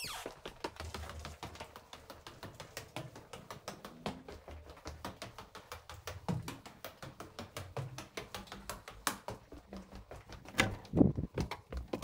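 Footsteps on hard stone stairs and floor: a quick, uneven run of clicks and taps, with a few louder knocks near the end at a door.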